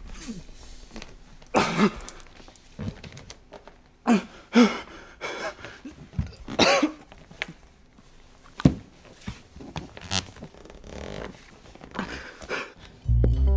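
A man groaning and grunting in short, wordless bursts, with a few knocks and rustles. A low, steady music chord comes in just before the end.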